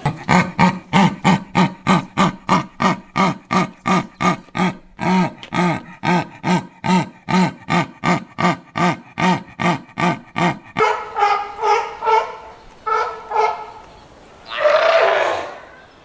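An animal calling in rapid, evenly repeated barks, about three a second for some ten seconds, then a few higher-pitched calls and one longer call near the end.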